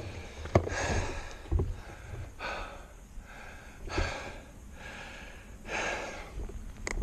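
A cyclist's heavy, laboured breathing: deep gasping breaths about every second and a half, from the strain of a very steep road climb.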